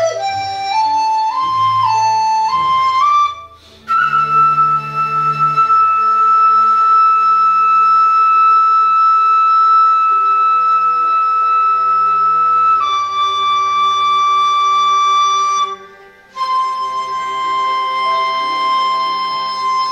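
Dizi (Chinese bamboo transverse flute) playing a quick run of rising notes, then a long high note held for about eight seconds that steps down a little and is held again, with two short breath gaps. Low held accompaniment notes sound underneath.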